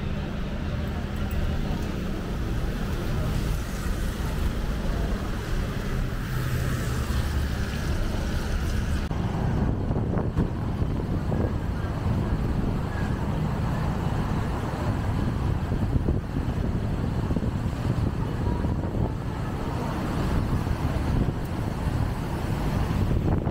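City street traffic: vehicle engines running close by, with a steady low engine hum for the first nine seconds or so, then a rougher rumble of passing traffic.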